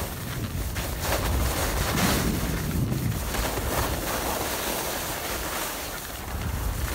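Wind rushing and buffeting over a phone's microphone on a downhill ski run, with skis hissing and scraping over packed snow; a steady, uneven rush with a deep rumble underneath.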